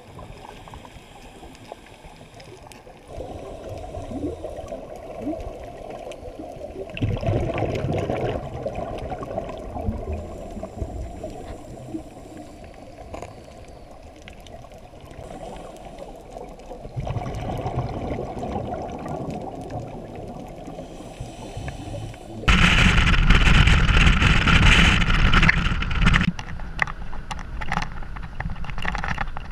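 Scuba regulator breathing recorded underwater: quieter inhalations between gurgling rushes of exhaled bubbles, the loudest rush about three-quarters of the way through. Near the end it cuts to car interior engine and road noise.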